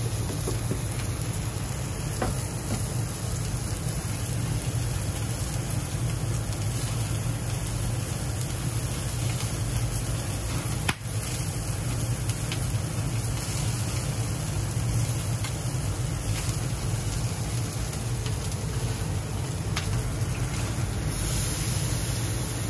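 Commercial gas grill running, with meat skewers sizzling over the flames and a steady low hum underneath. One brief click about halfway through.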